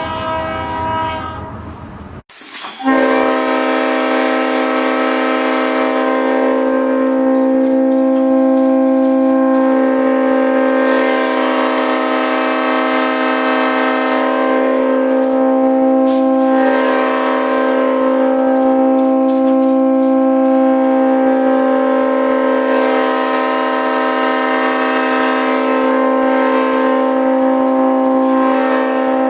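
A multi-tone air horn of the train-horn kind sounding one long, steady chord of several notes for about half a minute. About two seconds in, a different horn sound cuts off abruptly, and after a short click the long blast begins.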